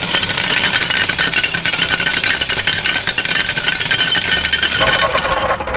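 Battery-powered toy blender running: a steady motor whir with a fast rattle of the plastic strawberry pieces spinning in the jar.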